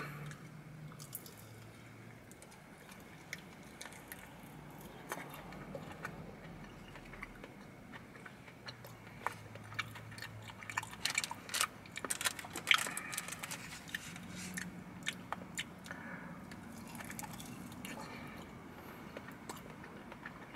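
A person biting and chewing a bone-in chicken wing close to the microphone: faint, irregular mouth clicks and smacks, busier in the middle stretch.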